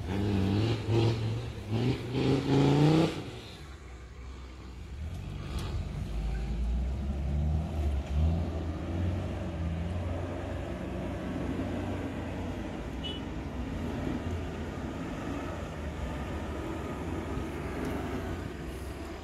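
Off-road 4x4's engine revving hard in surges as it climbs a steep, rough track, then running quieter and steadier from about three seconds in as the vehicle works its way farther up the slope.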